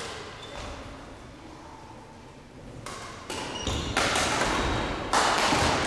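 Badminton rally: sharp racket strikes on the shuttlecock and players' feet thudding and landing on the hall floor. The sounds start about three seconds in and grow louder and denser from about four seconds in, around a jumping overhead shot.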